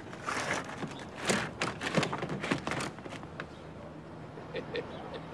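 Clothes rustling, with small knocks and taps, as the contents of an open suitcase are rummaged through by hand. The handling dies down after about three seconds.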